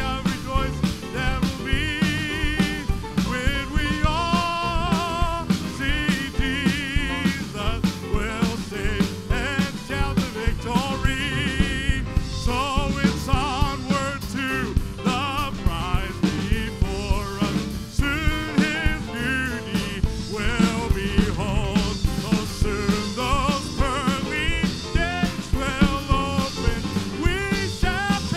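Live gospel band music with a steady drum beat and a lead melody that wavers with heavy vibrato.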